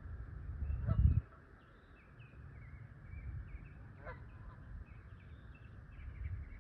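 Waterfowl honking twice, about a second in and again about four seconds in, over a steady run of short chirps from small birds. A low rumble runs underneath and is loudest about a second in.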